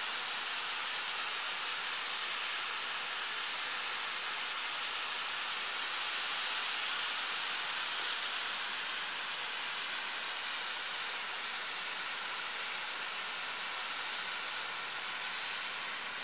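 A lance-type snow gun, the kind that makes snow from compressed air and water, spraying snow with a steady, loud hiss.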